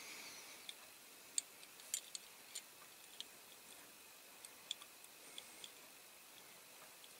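Faint, irregular small clicks and taps of a diecast model tractor's metal and plastic parts handled and pressed together by hand. The sharpest come about one and a half and two seconds in, and they thin out near the end.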